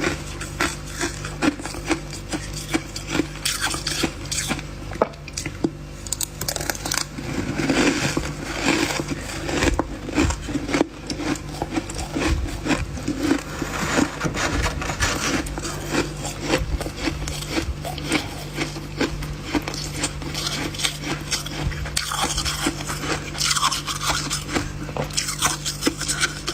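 Freezer frost being scraped and crunched with a utensil: dense, irregular scraping and crackling strokes throughout. A low steady hum runs underneath, dropping out for a while in the middle.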